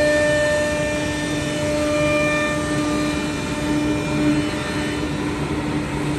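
Woodworking CNC machine running, its spindle giving a steady high whine over a noisy mechanical hum.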